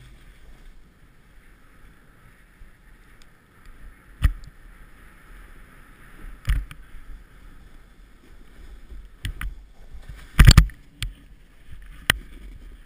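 Snowboard sliding through powder snow, a steady hiss, broken by several sharp knocks, the loudest about ten and a half seconds in.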